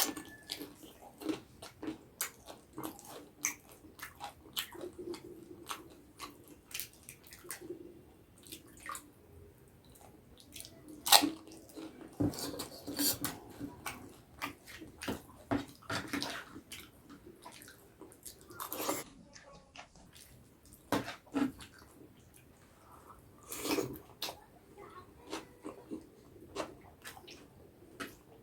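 Close-up wet chewing and mouth sounds of a person eating by hand: irregular smacks and clicks, some louder than others, all through.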